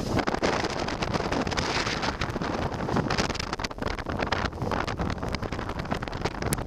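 Force 7–8 gale wind buffeting the microphone on an open sailboat deck: a dense, gusty rush of noise that flutters unevenly.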